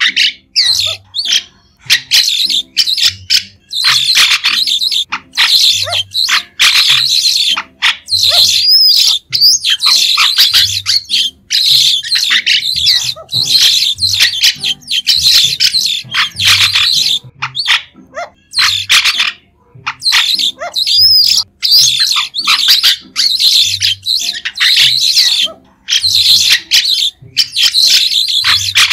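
White-shouldered starling calling: quick, shrill chattering and squeaky notes in bursts with short pauses between them, now and then a sharp rising squeak.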